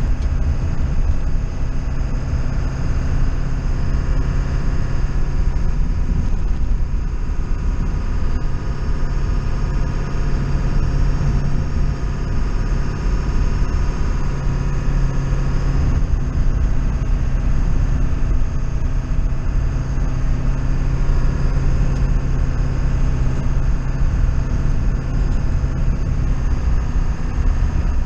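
A motor vehicle engine running steadily under a low rumble, with a constant hum that barely changes in pitch.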